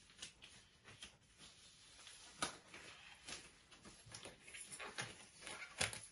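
Faint, irregular clicks and taps, with a sharper one about two and a half seconds in and another near the end.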